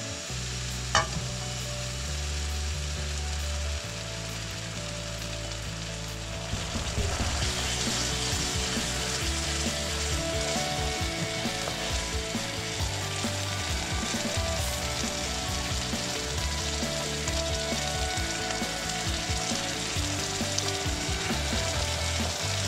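Tomato sauce sizzling in a hot nonstick wok as it is stirred and spread with a utensil; the sizzle grows louder about seven seconds in. A single sharp click sounds about a second in.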